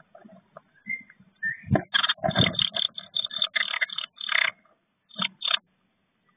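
Blue tits moving in a wooden nest box: claws scrabbling and wings brushing on the wood and the moss-and-grass nest. It comes as a quick run of scratchy bursts as an adult comes in to feed the chicks, then two more bursts near the end.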